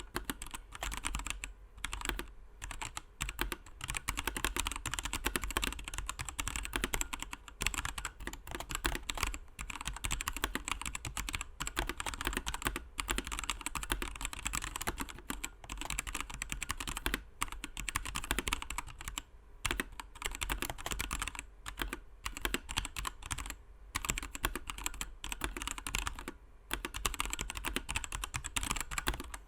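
Continuous fast typing on a Patriot Viper V765 mechanical keyboard with Kailh BOX Red linear switches, in stock form with unlubricated Costar stabilizers; only the spacebar stabilizer has been modded.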